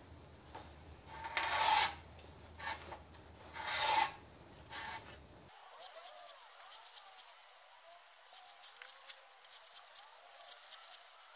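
Hand-turned valve seat cutter scraping the cast iron of a flathead engine block as it recuts an exhaust valve seat pocket, in a few rasping strokes, two of them loud. About halfway through, a run of short, sharp clicks in small clusters follows.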